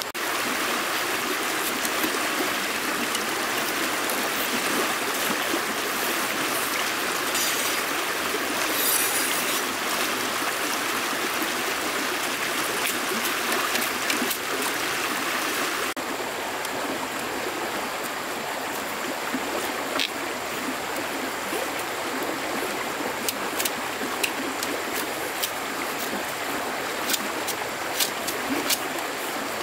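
Steady rush of running water, like a stream, with scattered small clicks and taps over it. It drops slightly in level about halfway through.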